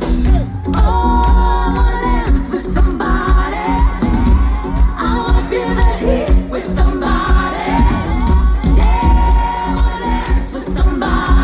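Live schlager pop concert: a woman singing over a loud band with a heavy, steady beat, the crowd faintly cheering along.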